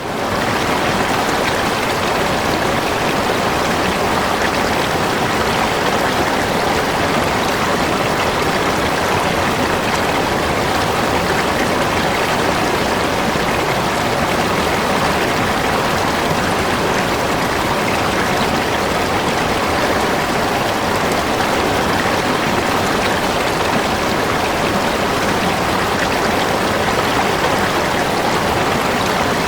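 Spring water flowing steadily over rocks in a stream, a continuous even rush of water that fades in at the very start and then holds steady.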